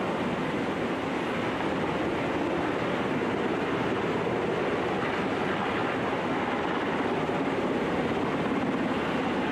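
Navy Seahawk (H-60) helicopter hovering close by as it lifts a slung cargo load: steady, loud rotor and turbine noise.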